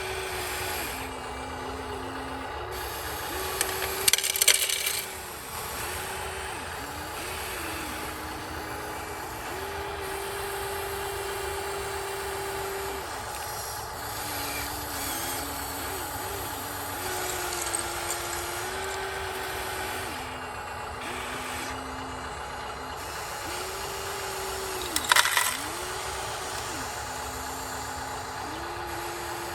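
Small electric motors of an RC excavator whining, their pitch stepping up and down between a few levels as the controls change. Gravel clatters loudly twice, about four seconds in and again near the end, as a load drops.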